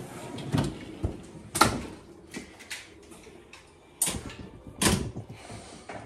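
A metal tilt fridge slide by RV Storage Solutions being unlatched and pulled out, carrying a loaded portable fridge: sharp metal clunks about half a second, one and a half, four and five seconds in, with a sliding noise between them.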